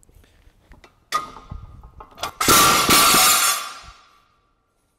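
Metal clanging from a loaded barbell and its iron plates: a clank about a second in, then a louder clang about two and a half seconds in that rings for about a second and a half.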